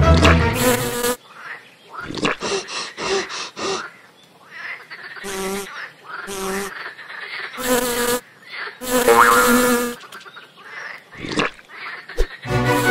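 Fly buzzing sound effect in short bursts with gaps between them. Music stops about a second in and comes back near the end.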